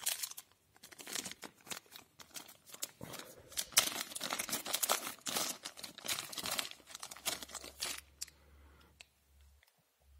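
Small clear plastic zip bag of red game tokens being handled and turned over, the plastic crinkling with sharp crackles. It dies away about eight seconds in.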